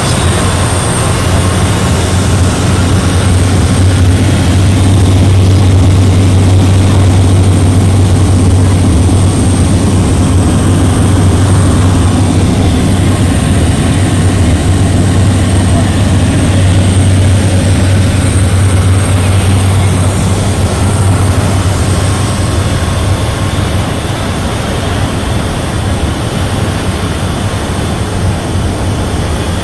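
Steady drone of a Cessna Grand Caravan's PT6A turboprop engine and propeller, heard inside the cabin in flight: a deep, constant hum with a thin high whine over it. The level eases slightly over the last third.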